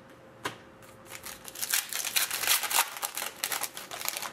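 Hockey trading cards and their pack wrapper being handled, with a sharp click about half a second in and then a dense crackling rustle.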